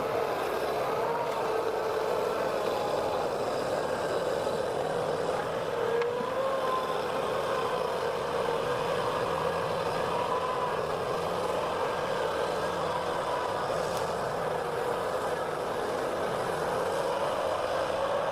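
Heavy machine engine running steadily, its pitch wavering slightly up and down.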